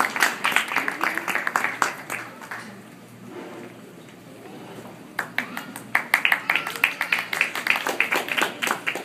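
Small audience applauding, the clapping dying away after about two and a half seconds; after a quieter spell a second round of clapping starts about five seconds in.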